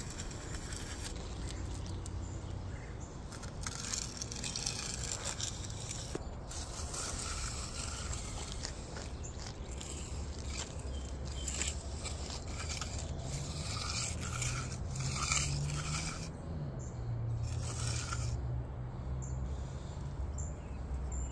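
Intermittent scraping and rustling, over a low steady hum that grows stronger about two-thirds of the way through.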